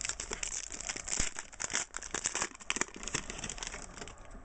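Foil trading-card pack wrapper crinkling as it is torn open by hand: an irregular run of crackles.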